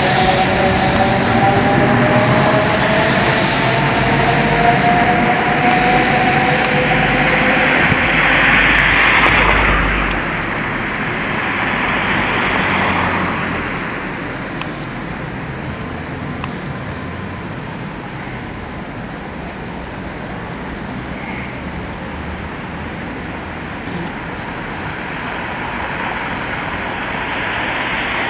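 Vintage wooden-bodied tram pulling away along street rails: its traction motors give a whine that rises slightly in pitch over the first several seconds, over rolling wheel and rail noise. After about ten seconds it falls away into steady street traffic noise.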